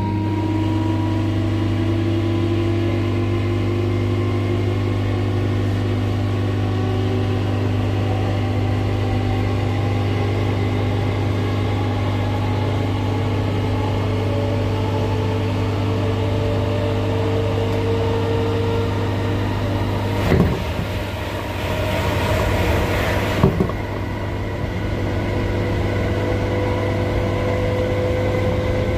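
Class 319 electric multiple unit's traction motors whining under acceleration, heard from inside the carriage: several tones rise slowly in pitch as speed builds, over a steady low hum. About twenty seconds in, a rush of louder noise lasts about three seconds, opening and closing with a knock.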